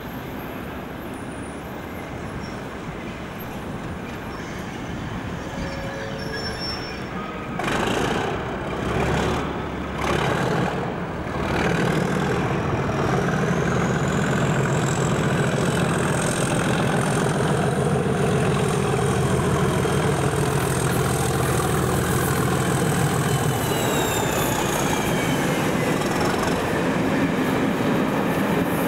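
Class 37 diesel locomotive, with its English Electric V12 engine, approaching and passing under power at the head of a passenger train. The engine drone builds after a few brief loud rushes of noise and then holds strong, with a high whistle that rises as the locomotive nears and falls away as it passes; the coaches' wheels on the rails follow near the end.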